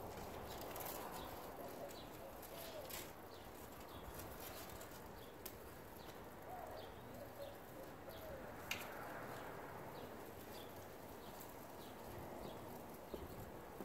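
Faint, steady water noise from a garden hose jetting through a PVC pipe into the soil as the pipe is twisted and pushed down, with a few light clicks. A dove coos in the background, once about three seconds in and again in a short series about halfway through.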